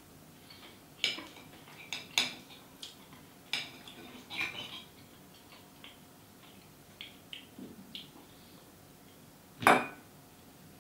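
A metal fork clinking and scraping against a ceramic bowl while eating, in irregular sharp clicks, the loudest near the end.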